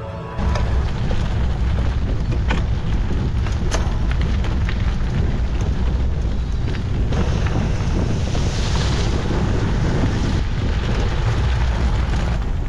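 Wind buffeting the microphone of a bike-mounted camera, over the rumble of gravel-bike tyres rolling on loose gravel, with scattered sharp clicks of stones and bike parts.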